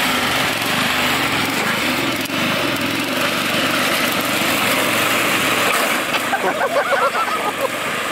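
Stock Toro riding lawn mower's small engine running steadily as it drives over sandy dirt. A brief wavering, pitched sound rises above it about six seconds in.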